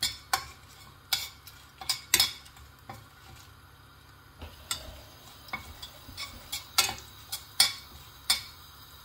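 Metal spoon stirring in a stainless steel pan of hot oil tempering mustard seeds, cumin, dried red chillies and curry leaves. A light sizzle with scattered sharp clicks as the seeds begin to splutter.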